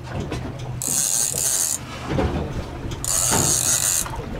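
Overhead fishing reel whirring in two bursts of about a second each, with a hooked fish on the line putting load on it.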